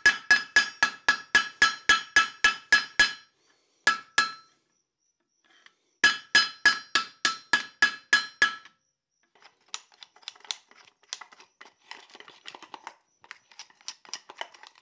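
Light hammer striking rapidly, about five blows a second, on a hot rivet over the anvil, each blow ringing: the rivet is being upset into a flared head. Two runs of blows with a short pause between; after them, fainter irregular clicking and scraping.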